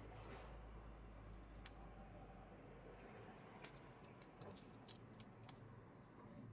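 Faint, sharp light clicks: two about a second and a half in, then a quick run of about ten over roughly two seconds, over a low steady hum.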